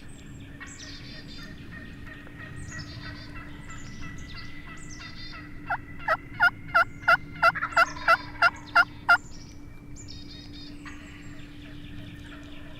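A run of about ten loud turkey yelps, roughly three a second, over a songbird repeating a short falling song again and again. A steady low hum sits underneath.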